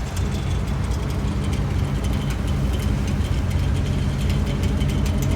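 A vehicle's engine running steadily at low revs while the vehicle is slowly reversed.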